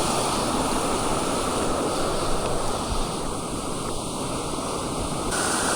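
Steady rushing noise of wind and moving water.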